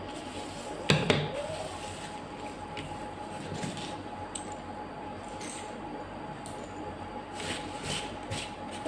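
A sharp double knock about a second in, then scattered faint clicks and taps of hands handling things on a cloth-covered craft table, over a faint steady hum.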